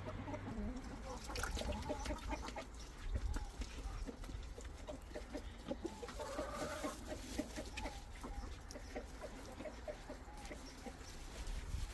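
Hens clucking and calling over and over, with scattered clicks and rustling.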